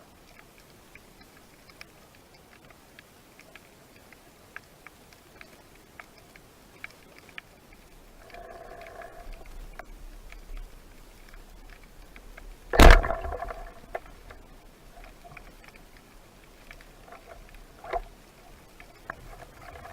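Underwater sound during a spearfishing dive: scattered small clicks and crackles, a short buzzing tone about eight seconds in, and one loud sharp knock with a brief ringing about thirteen seconds in, with a smaller knock near the end.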